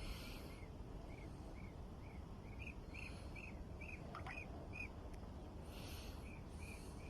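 A small bird calling, one short chirp repeated about twice a second, pausing briefly about five seconds in. Under it runs a low steady rumble, with a few short rushes of hiss.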